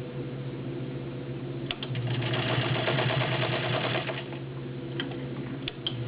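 Class 15 clone straight-stitch sewing machine with a 0.75 amp motor, stitching through five layers of woven upholstery fabric. It hums steadily and runs up to a faster, louder stretch of rapid stitching about two seconds in, then slows, with a few sharp clicks near the end.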